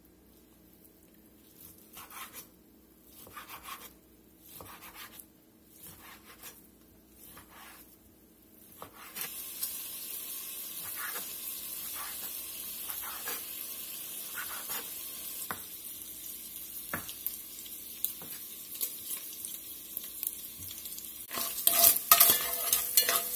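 Knife strokes cutting cube steak on a wooden cutting board, about one a second. From about nine seconds in, chopped bacon sizzles steadily as its fat renders in an enameled cast-iron Dutch oven, with an occasional knife tap. Near the end a metal spoon stirs and scrapes the bacon around the pot, louder.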